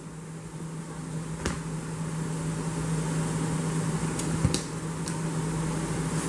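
A steady low hum under a soft rustling that slowly grows louder, with a few light clicks: couscous salad being handled and stirred with a plastic spatula in a plastic bowl.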